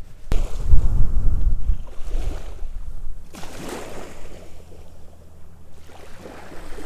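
Gusty wind buffeting the microphone, with a rushing hiss that swells and fades twice.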